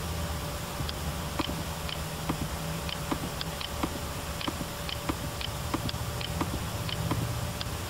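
Computer mouse clicking, short light clicks at an uneven pace of about two a second, over a steady low background hum.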